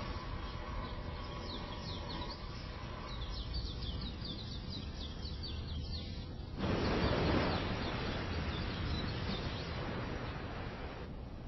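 Birds chirping in rapid runs of short descending chirps over a steady background ambience. About two-thirds of the way through, this switches abruptly to a louder steady rushing noise that eases off near the end.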